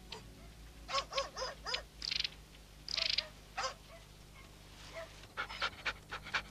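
Feral dogs yelping and barking in short calls: a quick series of yelps about a second in, two harsher barks around two and three seconds, and a rapid run of yips near the end.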